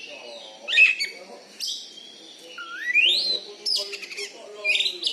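Oriental magpie-robin (kacer) singing a varied, loud song of sharp chattering notes and whistles, with a rising whistled glide about halfway through.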